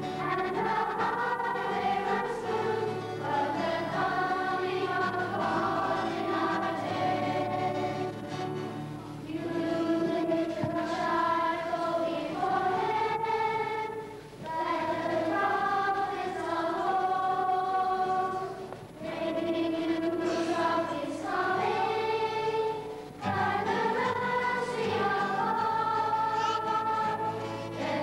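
A choir of young voices singing a hymn in long phrases, with brief breaks between the lines.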